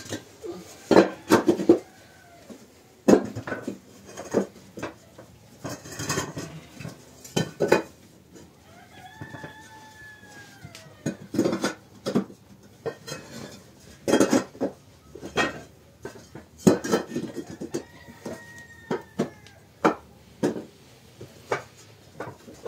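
Hollow perforated bricks clinking and knocking against each other as they are set down one by one on a floor of laid bricks. The knocks are sharp and come in irregular bunches with short pauses between.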